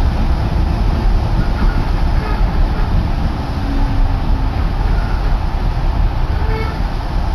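Steady low rumble of a moving Yoro Railway electric train, heard from inside the passenger car as it runs along the line.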